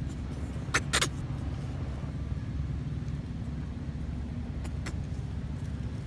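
Steady low rumble of a motor vehicle's engine running, with two short sharp clicks about a second in.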